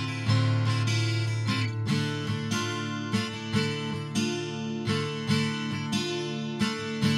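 Background music: acoustic guitar strumming chords in a steady rhythm, about two strums a second.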